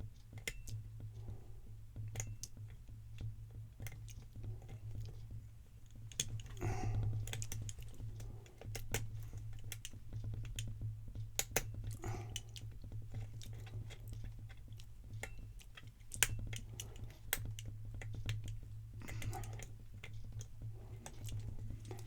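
Lock pick and tension wrench working the pins inside a Guard 365 padlock: a scatter of small, irregular metallic clicks and scrapes, over a steady low hum.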